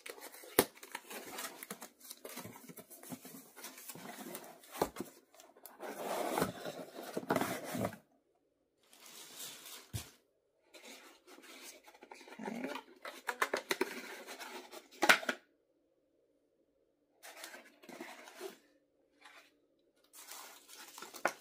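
Gift wrapping being unwrapped by hand: irregular rustling, crinkling and tearing with small clicks and taps, broken by two short pauses, and a sharp crackle about fifteen seconds in.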